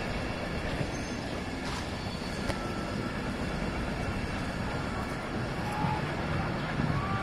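Steady outdoor background rumble, heaviest in the low end, with a few faint short chirps near the end.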